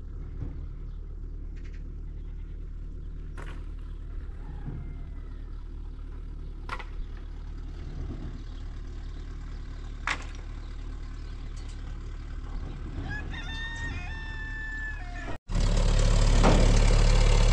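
A rooster crows once, about two seconds long, over a steady low rumble with a few sharp clicks. It then cuts abruptly to a much louder, steady running engine.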